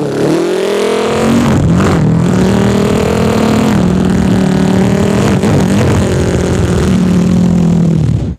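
A beatboxer's vocal imitation of a racing car engine: a continuous buzzing mouth sound that wobbles in pitch at first, then climbs and holds steady like an engine revving and cruising, with a couple of brief breaks.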